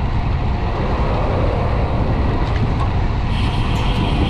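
Wind rushing and buffeting over the microphone of a handlebar-mounted camera on a road bike riding at speed, with tyre noise on asphalt, as a steady loud rumble.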